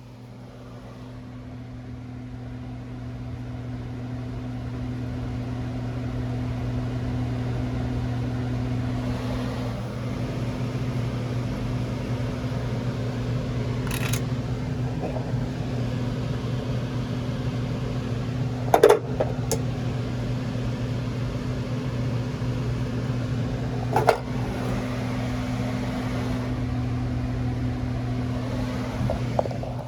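Electric air handler with power applied, giving a steady electrical hum: a deep buzz with a second tone above it. It builds over the first few seconds and cuts off suddenly at the end, with three sharp clicks about five seconds apart in the middle.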